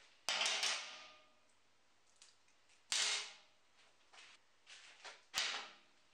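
Metal parts set down one at a time on a steel table top: sharp metallic clacks with a short ring, a double clack near the start, another about three seconds in and a last one near the end, with a few light clicks of small screws between them.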